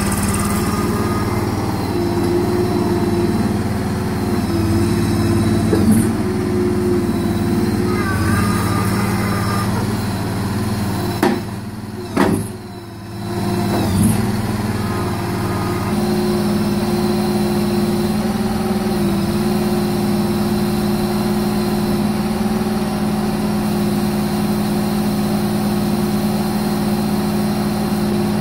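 Engine of a Hardlynx 323T tracked mini loader running steadily, with a few short whines in the first ten seconds. About halfway through the sound drops away briefly, with a few knocks, before the engine carries on.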